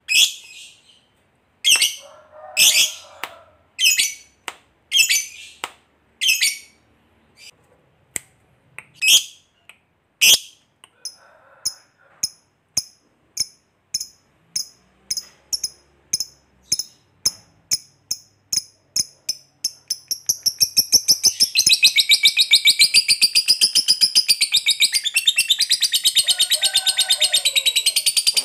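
Fischer's lovebird calling: sharp, high chirps about a second apart, then quickening short clicks that build, about two-thirds of the way through, into a long continuous rapid chattering trill. This is the 'ngekek panjang', the long trill that lovebird keepers prize.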